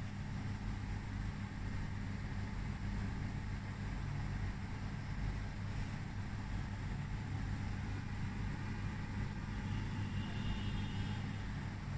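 Steady low hum under an even hiss, typical of a large aquarium's running air pump and filtration. A faint high warbling tone comes in briefly near the end.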